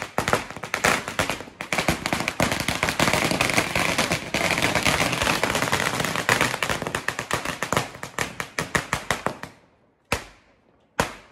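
A string of firecrackers (ladi) going off on the ground: rapid, continuous bangs for about nine seconds that thin out, then two single loud bangs near the end.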